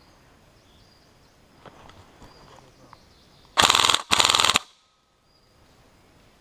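Airsoft rifle firing two short bursts on full auto, about three and a half seconds in, each under half a second with a brief gap between them. The rapid shots are very loud.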